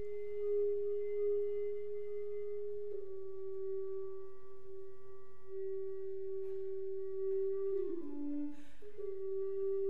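Solo recorder holding long, pure sustained notes, stepping slightly down in pitch about three seconds in. Near the end it plays a quick falling run of short notes, a short breath is heard, and it settles on another long held note.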